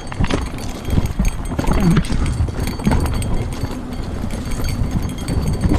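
Mountain bike descending a rocky trail: tyres and frame clattering over loose stones in quick irregular knocks, with a steady wind rumble on the microphone.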